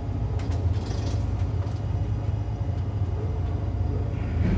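Steady low mechanical rumble inside a carrier's catapult control bubble on the flight deck, with a few faint clicks in the first couple of seconds.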